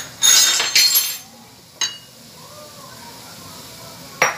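Stainless steel pot lid clinking against a pot: two ringing clanks in the first second, a lighter tap near two seconds in, and another clink near the end.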